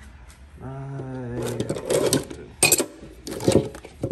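Metal hand tools clinking and clattering as pliers are handled and shifted in a steel toolbox drawer, with three sharp clinks in the second half. Near the start there is a man's short, drawn-out 'umm'.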